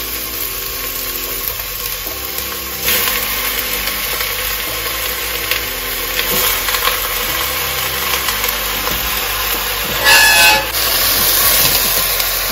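Background music, a slow melody of held low notes, over a steady kitchen hiss. A short, brighter clatter comes about ten seconds in.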